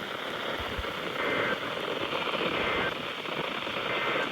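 Weak weather-radio reception: a steady hiss of static with some crackle. Faint paired data tones of an emergency alert header break through briefly three times.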